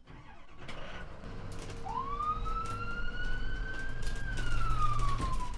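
Emergency-vehicle siren sounding one wail: it rises about two seconds in, holds, then falls away. Under it runs a low vehicle rumble, with a few sharp clicks.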